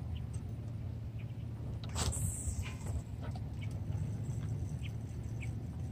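Steady low wind rumble on the microphone, with faint short chirps scattered through it and a brief rustle about two seconds in.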